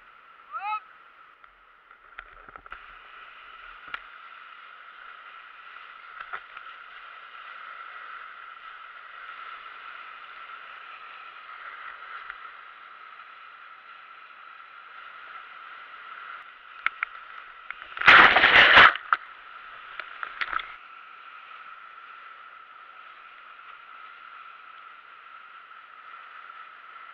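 Whitewater rapids rushing steadily, heard from a camera on a kayak, with small splashes and knocks. A loud splash lasting about a second comes about eighteen seconds in, followed by a few smaller splashes.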